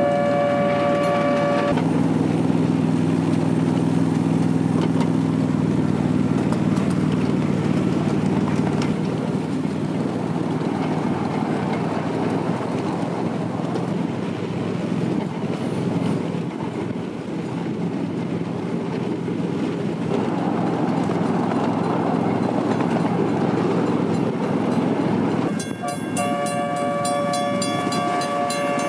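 A ride-on 7.5-inch-gauge miniature train rolling along the track with a steady rumble. Its multi-tone horn sounds for about two seconds at the start and again near the end, the second time together with a fast, regular ticking.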